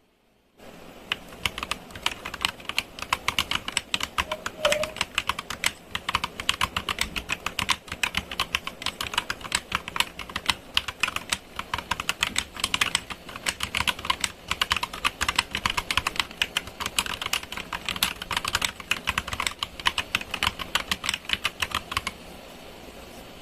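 Fast typing on an Akko 3068B Plus mechanical keyboard: a dense, uneven run of key clacks that starts about a second in and stops about a second before the end.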